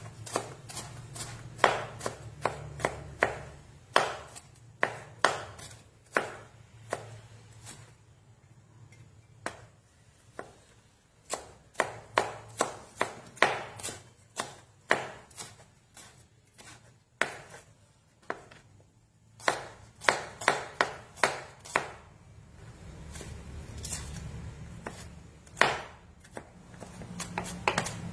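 Kitchen knife mincing ginger and shallots on a plastic cutting board: irregular runs of sharp taps, with short pauses between runs.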